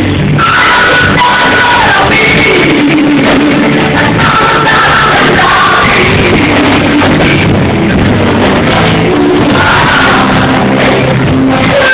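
Live rock band playing a power ballad loudly, with a woman singing long held notes over the band.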